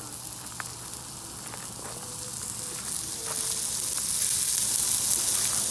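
Cheeseburger patties sizzling on the flat side of GrillGrates panels over a charcoal Weber grill, a steady hiss with occasional crackles and pops. It gets louder from about halfway through.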